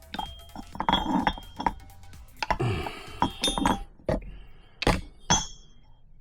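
Metal tools and motor parts clinking and knocking on a workbench. There are several sharp clinks throughout, a few with a brief metallic ring, and a cluster of handling noise in the middle.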